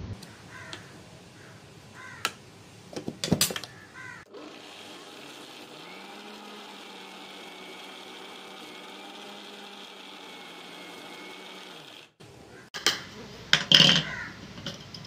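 Spoon scraping and clinking inside a steel mixer-grinder jar. Then the electric mixer grinder runs steadily for about eight seconds, grinding cashews into a thick paste that is starting to release its oil. It stops abruptly, and steel jar and lid clatter loudly near the end.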